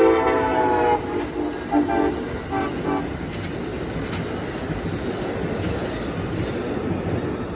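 Amtrak passenger train's locomotive horn ending a long blast about a second in, then two short toots, followed by the steady noise of the train's wheels running past on the rails.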